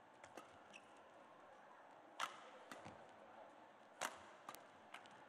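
Badminton rackets striking the shuttlecock during a rally: two sharp hits about two seconds apart, with fainter clicks between them over low arena background noise.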